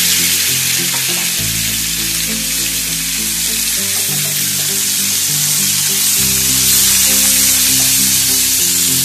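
Diced raw chicken breast sizzling in hot oil in a nonstick frying pan, a steady hiss. Background music with slow, sustained low notes plays under it.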